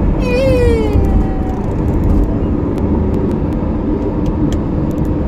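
Steady road and engine noise of a moving car, heard from inside. Near the start comes a short falling tone lasting about a second.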